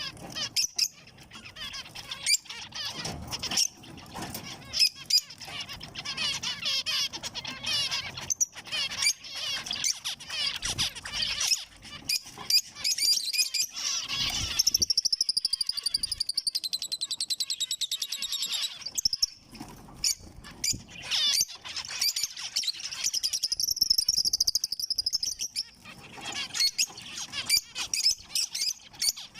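Zebra finches calling and chirping, many short high-pitched nasal notes overlapping from several birds. Twice, a few seconds of rapid buzzy song break in: about halfway through and again later.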